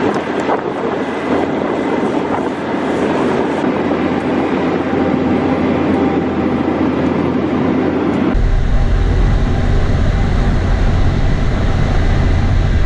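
Tile plow running under load as it pulls plastic drain tile into the soil: steady, loud heavy-machine running noise. About eight seconds in the sound changes abruptly to a deeper, heavier running sound.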